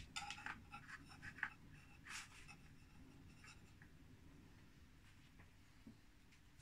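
Faint scraping and light ticks of a small knife working soft biscuit dough on greaseproof paper, mostly in the first two seconds or so, then near silence.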